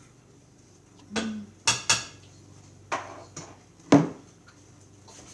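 A utensil knocking and clinking against a mixing bowl while stirring a thick, clay-like slime, five sharp knocks spread over a few seconds.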